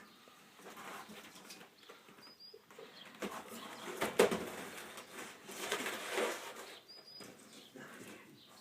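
Fiberglass window-screen mesh rustling and crinkling as it is handled and unrolled, in uneven swells that are loudest about four and six seconds in.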